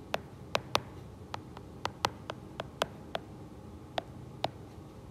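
Stylus tip tapping and clicking on a tablet's glass screen while letters are handwritten: a dozen or so sharp, irregularly spaced clicks.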